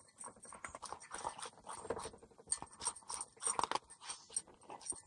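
A small dog eating from its food dish: a quick, irregular run of bites and chews.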